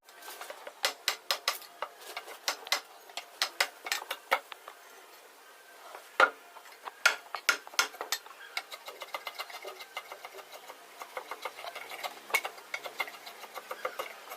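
Rapid, irregular light clicks and taps with a few sharper knocks, growing denser in the second half.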